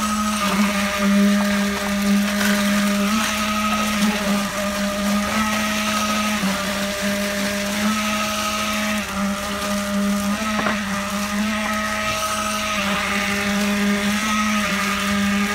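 Machinery for a ready-mixed concrete pour running with a steady motor hum, its pitch dipping briefly every few seconds, over a constant rushing noise.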